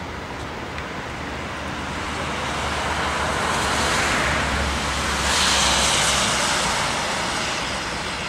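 ICE 3 high-speed electric train passing at speed: a rushing noise of wheels on rail and air that swells, peaks with a hiss about five and a half seconds in, then fades as it goes by.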